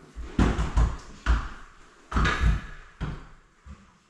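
Heavy thuds and knocks from work on a drywall-covered stud wall being opened up: three sharp knocks in the first second and a half, then a longer crunching thud about two seconds in, and a few weaker knocks after it.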